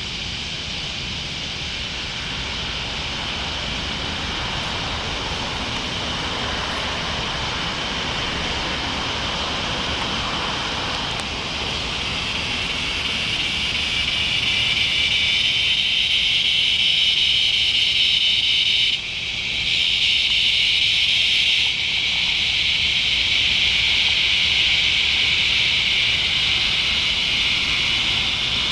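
Chorus of northern dusk-singing cicadas (Tibicen auletes) buzzing, a steady high drone that swells louder through the first half and briefly drops away about nineteen seconds in.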